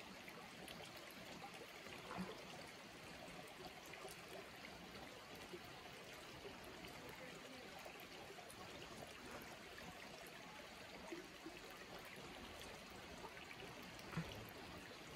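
Faint, steady trickle of shallow river water running over rock.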